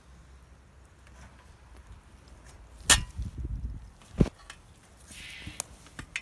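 Homemade square-steel-tube pottiputki tree planter being jabbed and worked into the ground: two sharp knocks about a second apart, with low scraping and rustling of the ground litter between and after them.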